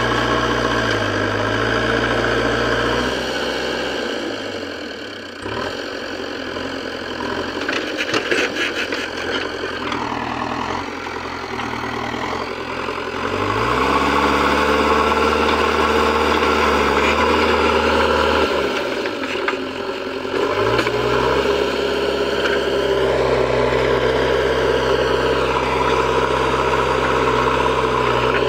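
JCB 3DX backhoe loader's diesel engine running while the loader pushes and levels sand. The engine speed drops away twice and climbs back up, louder under load, from about halfway through.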